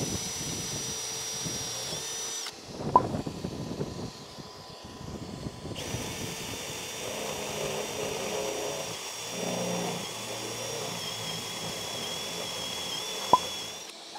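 Cordless drill opening up a hole in a van's sheet-metal roof with a step bit: a steady high motor whine that runs for a couple of seconds, stops for about three seconds, then runs again for about eight seconds. Two sharp clicks, one about three seconds in and one near the end.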